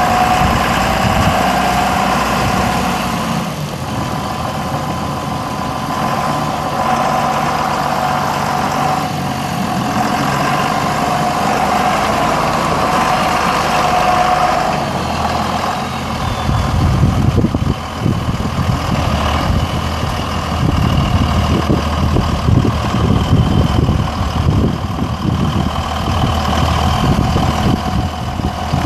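2001 John Deere 7210 tractor's 6.8 L six-cylinder diesel running steadily as the tractor drives across gravel and turns. It grows louder and rougher from about halfway through as it comes closer.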